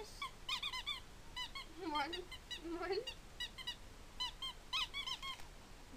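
Small dog whining in rapid, short, high-pitched squeaks, several a second, with two longer, lower drawn-out sounds about two and three seconds in.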